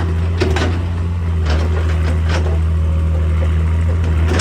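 Excavator's diesel engine running steadily, with a few short, scattered clanks about half a second, a second and a half, and two and a half seconds in.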